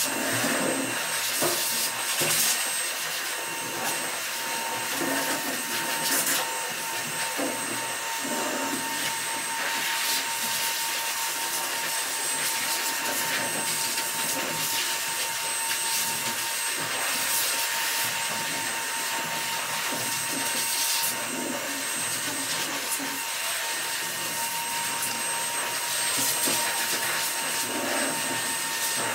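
Steady whir of an electric blower motor, such as a grooming dryer, with brush strokes rasping through a dog's long coat.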